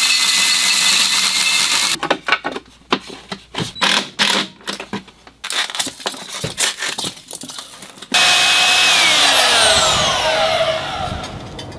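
A drill runs a carbide hole cutter through steel plate with a steady, loud whine. It stops about two seconds in and gives way to a run of irregular clicks and knocks. Near the end another power tool runs loudly, its pitch falling as it winds down.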